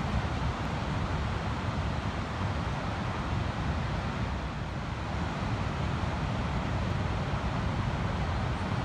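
Ocean surf on a sandy beach: a steady wash of breaking waves with a heavy low rumble.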